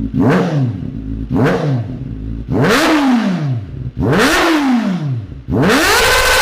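Kawasaki Ninja ZX-4RR's 399 cc inline-four engine being revved at standstill: a few quick short blips, then two bigger revs that rise high and fall back, and near the end a rev that climbs and is held high.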